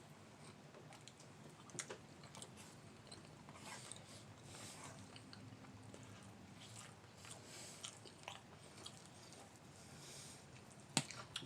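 Faint close-up chewing and mouth sounds of someone eating barbecue meat, with small wet clicks scattered throughout and a sharper click near the end.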